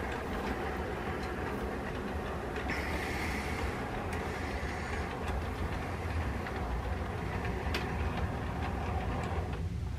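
HO-scale model train, an Amtrak P40 locomotive and Amfleet coaches, running steadily through a curve: a low motor hum and the rolling of wheels on the rails, with a few faint clicks.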